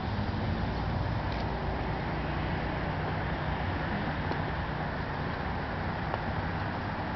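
Steady outdoor background noise, a low rumble with an even hiss over it, as from road traffic close by. No distinct event stands out.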